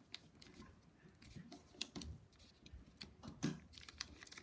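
Fingers folding and pressing a sheet of colored origami paper: faint, scattered crinkles and ticks, the sharpest about three and a half seconds in.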